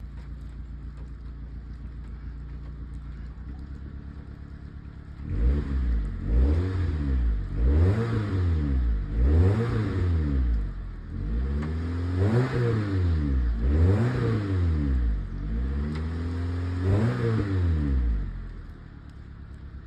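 1995 Mitsubishi Mirage's four-cylinder engine idling steadily, then revved up and let fall about seven times in a row before settling back to idle. It is running after its disconnected spark plug wires were put back on, though it had been sold as blown.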